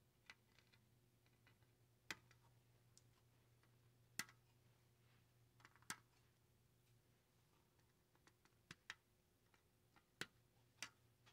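Flush cutters snipping the excess leads of freshly soldered capacitors on a circuit board: a handful of sharp snips spaced a second or more apart, with fainter ticks between, over a faint steady hum.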